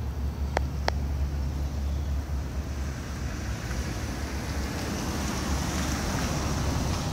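Street traffic noise: a steady low rumble with a hiss of passing traffic that swells in the latter half, and two short sharp clicks about a second in.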